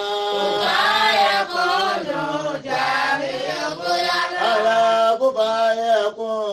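A man's voice chanting an Islamic devotional chant (dhikr), in long drawn-out phrases whose pitch slides slowly up and down.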